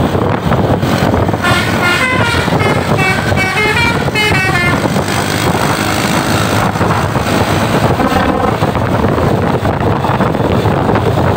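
Tour bus telolet horn, a multi-tone Basuri air horn, playing a quick tune of short notes that rise and fall for about three seconds. A single short blast follows about eight seconds in. Steady vehicle noise runs underneath.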